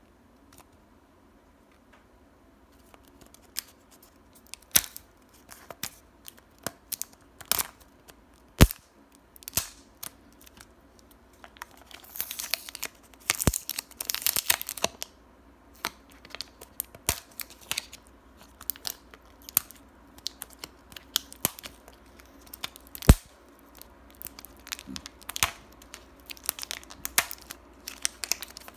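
Paper wrapper being peeled and torn off a plastic surprise-egg capsule: irregular crinkling and tearing starting a few seconds in, busiest about halfway through, with scattered sharp clicks.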